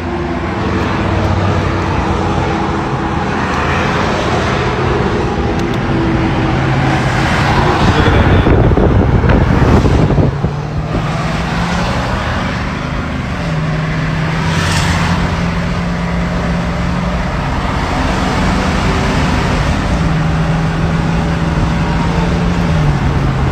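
Roadside service truck driving off along the highway: its engine hum steps up and down in pitch several times as it changes gear, over steady road and traffic noise, with a louder rush of noise about eight to ten seconds in.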